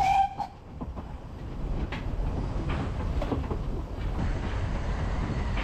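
Narrow-gauge steam train running along the line, heard from an open coach: a steady low rumble from the wheels and coach, with a few faint clicks, growing a little louder after the first second or two.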